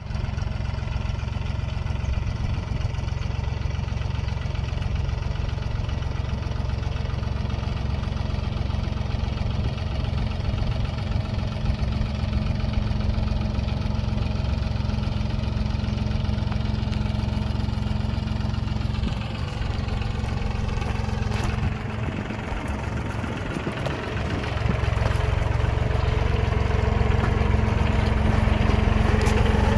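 Old International tractor's diesel engine idling steadily. It dips briefly about two-thirds of the way in, then runs louder for the last few seconds.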